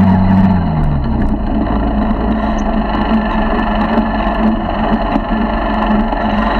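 50cc four-stroke motorized bicycle engine running. Its pitch drops as the revs fall in the first second, then it runs steadily at lower revs.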